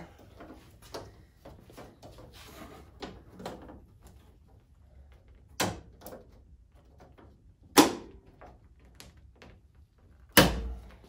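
Chrome door window trim being pressed onto its metal retaining clips on a 1977 Chevy Camaro door: light rubbing and handling, then three sharp snaps as sections latch on, the last with a heavier thump through the door panel.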